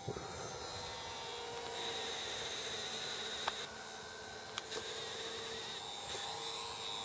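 Distant RC model airplane engine buzzing steadily in flight, a thin insect-like whine whose pitch drifts slightly as the plane manoeuvres. Two brief clicks in the middle.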